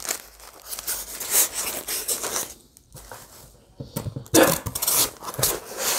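Small cardboard boxes being handled and opened, with scraping and rustling of cardboard and paper packing. The sound is louder a little after four seconds in, as the insert is pulled out.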